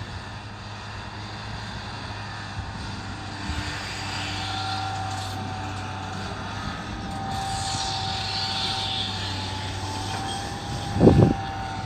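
Komatsu PC200 long-reach excavator's diesel engine running steadily with a low hum, and a higher whine that comes and goes in the middle and later part. A couple of loud low thumps sound about eleven seconds in.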